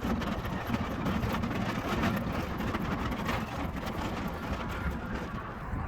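Steady low vehicle rumble with scattered clicks and rattles.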